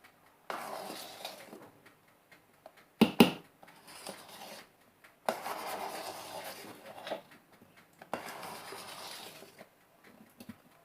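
Cake batter being mixed by hand in a bowl: a utensil scraping and swishing through the batter in strokes lasting a second or two, with short pauses between them. Two sharp knocks against the bowl come about three seconds in.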